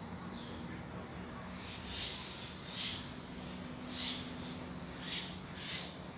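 Birds calling: about five short calls, the first about two seconds in, then roughly one a second, over a faint steady low hum.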